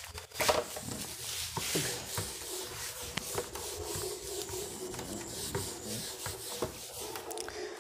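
Continuous rubbing and scratching sounds with light scattered clicks, under a faint steady hum.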